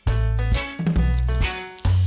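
Upbeat background music with steady bass notes and a light rattling percussion.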